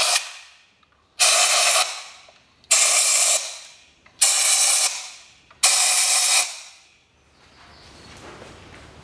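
Compressed-air nozzle hissing in short blasts, blowing dust and grit out of the spark plug wells of a Chevrolet Cruze 1.8 engine before the plugs come out. The end of one blast is followed by four more, each under a second long and starting sharply, about one and a half seconds apart.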